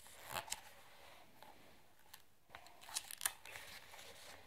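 Paper pages of a book being turned by hand: faint rustles and crinkles, one short one about half a second in and a cluster around three seconds in.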